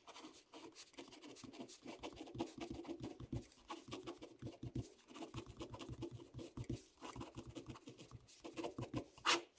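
Ballpoint pen writing letters on graph paper: faint, uneven scratching strokes of the tip on the paper, with a louder tap near the end.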